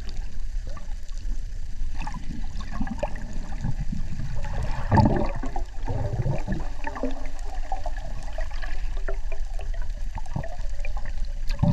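Underwater sound heard through a camera housing: muffled water swishing and gurgling, with a louder rush about five seconds in.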